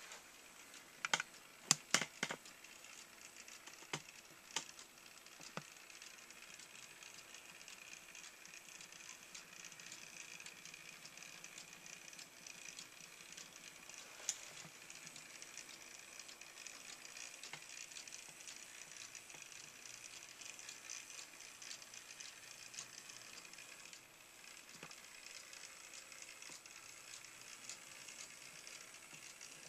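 Small model locomotive running along the track: a faint steady motor and gear whine that grows louder in the middle as it passes close by, then fades. A handful of sharp clicks come in the first few seconds and a couple more later.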